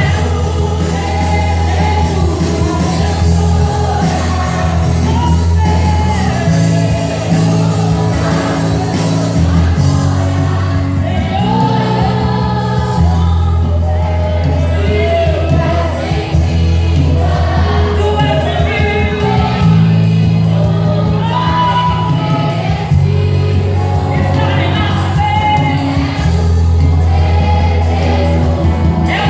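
Gospel song performed live by a band, with a lead singer and backing singers, over a steady bass line.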